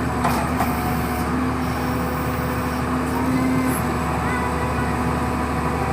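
Diesel engine of a ZT-21 horizontal directional drilling rig running steadily at a constant speed, with an even hum.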